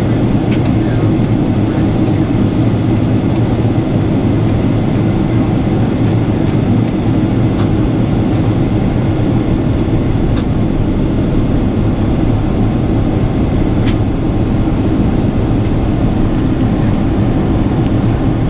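Steady cabin noise of a Boeing 777 on approach, heard from a window seat: the drone of its GE90 turbofan engines and the airflow over the fuselage, loud and unbroken, with a few faint ticks.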